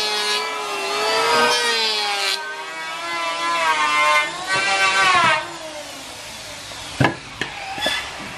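Electric hand planer cutting the bevelled edge of a wooden door panel, its motor whine rising and falling in pitch as the blade takes load, stopping about five seconds in. A sharp knock follows about seven seconds in, with a couple of lighter knocks after it.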